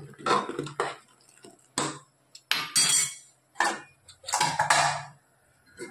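A metal spoon stirring liquid in an aluminium pressure cooker and clinking and scraping against its side, in about five short separate bouts with quiet gaps between them.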